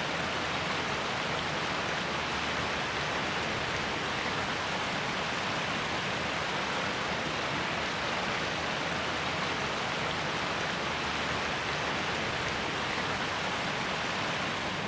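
Steady, even rushing of a stream's flowing water.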